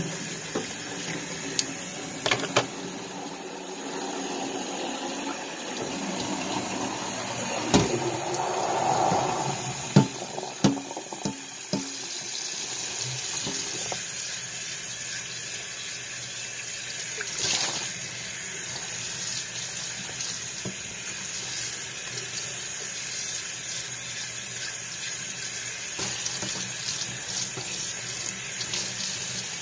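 Kitchen tap running steadily into a stainless steel sink while a glass coffee carafe is washed and rinsed, with a few sharp clinks and knocks of glass and dishware, most of them about 8 to 12 seconds in.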